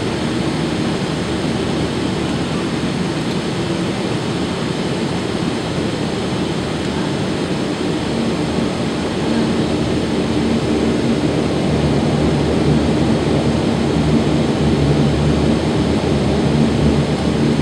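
Saab 2000's Rolls-Royce AE 2100 turboprop engines and propellers running steadily as the aircraft taxis, heard from inside the passenger cabin as a constant hum with a low steady tone in it. It grows a little louder about nine seconds in.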